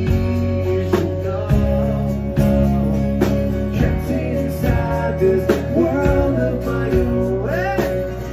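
Live rock band playing: strummed acoustic guitar, bass guitar and drum kit, with a sung vocal line over them.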